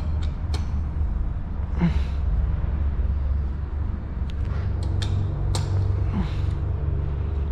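Hand tools clicking and scraping on the crankcase bolts of a Yamaha FZ 2.0 engine as they are snugged down, a few sharp clicks at uneven intervals, over a steady low workshop hum.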